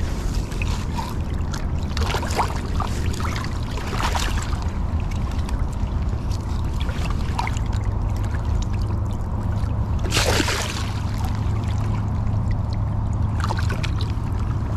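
Wind rumbling on the microphone over running river water, with a few brief louder noises, the loudest about ten seconds in.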